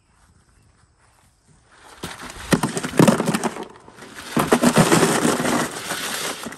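Freshly boiled blue crabs tumbling out of a perforated aluminium boil basket into a plastic ice chest: a loud rattling clatter of shells on metal and plastic. It starts about two seconds in and comes in two pours before it tails off.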